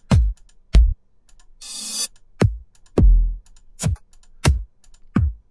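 One-shot electronic kick drum samples auditioned one after another, about seven short hits, each falling in pitch, with a different tone from kick to kick. A short hissy swell sounds near two seconds in.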